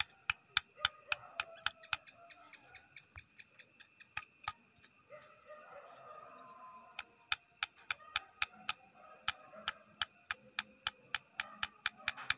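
Sharp metallic ticks, 'tek tek tek', from the connecting rod on an old Honda Revo crankshaft being struck by hand at its end: the rod knocks against its worn, loose big-end bearing. The taps come in a quick run at the start, then a few scattered ones, then another run from a little past halfway.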